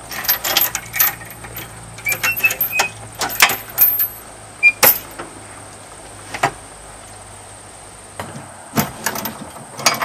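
Steel tie-down chain and metal hardware clinking and rattling against each other as the chain is handled and hooked up, in irregular clusters of sharp clicks with a quieter gap in the middle.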